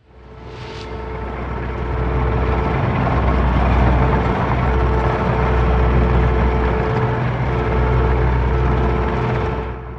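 Loud, steady industrial machinery noise: a low engine-like rumble with a hum, fading in over the first two seconds. Near the end it suddenly drops and turns muffled, its high end cut off, as if heard through earmuffs.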